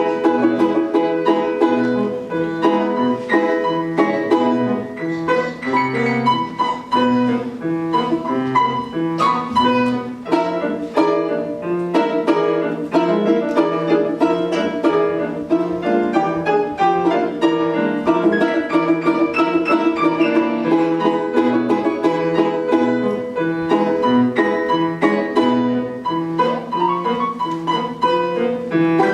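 A solo instrument with piano accompaniment playing a quick, rhythmic piece of many short notes.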